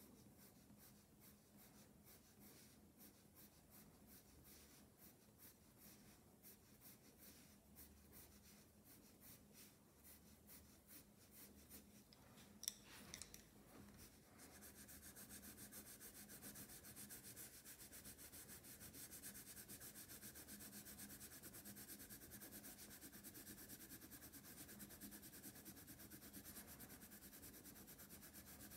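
Faint scratching of colored pencil strokes on drawing paper as a bird's wing is shaded, with a couple of sharp clicks about halfway through. After that the strokes come faster and closer together as steady rubbing.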